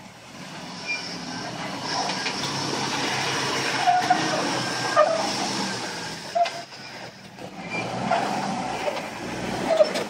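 Jeep Wrangler Rubicon's 4.0-litre straight-six running at low speed as it crawls up slickrock, getting louder as it comes closer, with a few brief sharp sounds over it about four and five seconds in and again near the end.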